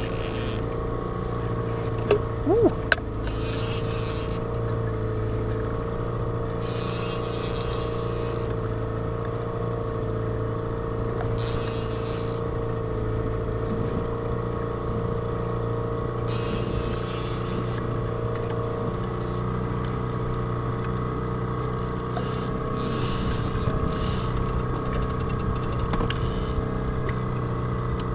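Small outboard motor on an inflatable boat running steadily at trolling speed, with short spells of hiss, about a second each, recurring every few seconds. A few sharp knocks come about two seconds in.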